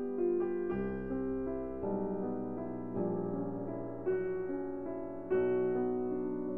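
Slow background piano music, a new chord struck about every second and left to fade.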